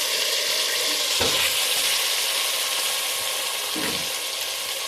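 Chicken masala sizzling in hot oil as it is stirred and scooped, with two dull knocks of the spoon against the pan, one about a second in and one near the end.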